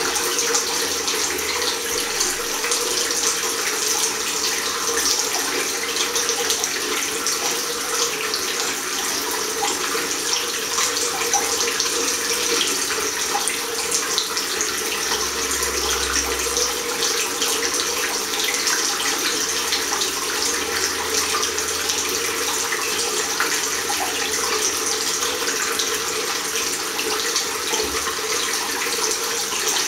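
Tap water from a chrome mixer faucet running in a thin stream into a ceramic washbasin and down its open drain: a steady, even hiss.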